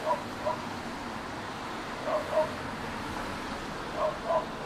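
Short, high, yapping calls, coming in ones and twos every second or two over a steady hiss.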